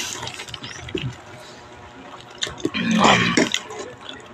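A spoon and fork clicking and scraping on a plate of crab and rice as it is eaten, in a few short ticks. A short burst of voice comes about three seconds in.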